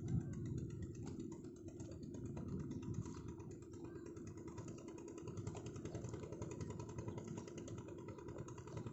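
Outrigger boat (bangka) engine running steadily, a low, even chugging.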